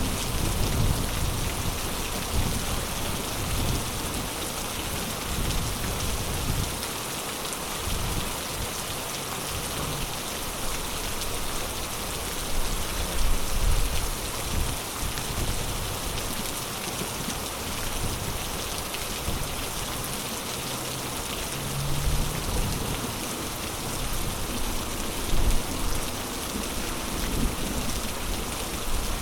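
Heavy rain pouring steadily, an even hiss, with a few brief low rumbles, the loudest about halfway through and near the end.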